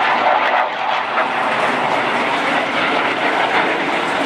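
CF-18 Hornet jet fighter's twin turbofan engines, a loud steady rush of jet noise as it flies past.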